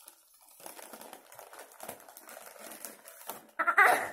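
Paper packets being unwrapped by hand, a steady crinkling and rustling of paper. Near the end, a short loud squeal from a girl.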